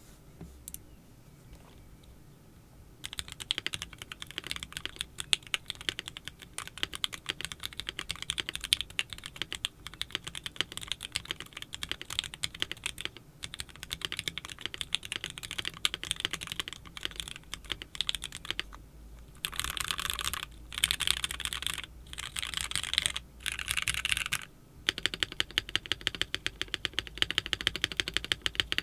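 Mechanical keyboard with lubed Gateron Ink Black linear switches on a thick polycarbonate plate, with GMK ABS keycaps, being typed on. The typing starts about three seconds in and goes on steadily, with a few short spells of faster, denser typing in the last third.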